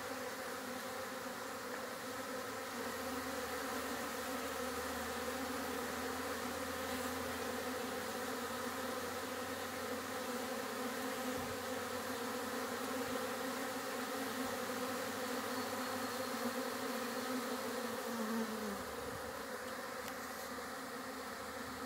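Many honeybees buzzing as they fly in and out of and around a hive entrance: a steady hum from the busy colony bringing in pollen. About eighteen seconds in, a single bee flies close by, briefly louder.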